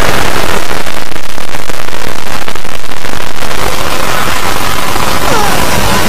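Very loud, heavily distorted, noise-like sound, with a few falling whistle-like glides near the end.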